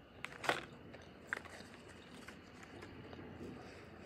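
Close-miked mouth noises of someone chewing food: a few short wet clicks and smacks, the loudest about half a second in and another just over a second in, with quiet chewing between.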